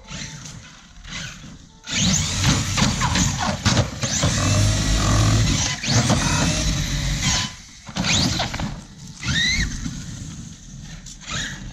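Electric RC monster truck (Hobao MTX on an 8S battery) driven hard on concrete in several bursts: the motor's whine rising and falling with each throttle blip, over loud tyre scrub.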